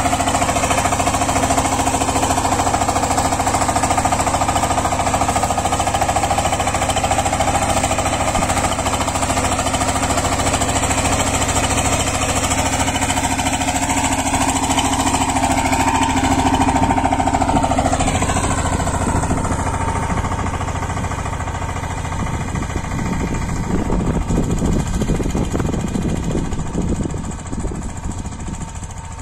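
Kirloskar 15 HP power tiller's single-cylinder diesel engine running under load with a rapid knocking beat as its rotary tines till the soil. The engine note bends around the middle, then the sound fades as the machine moves away.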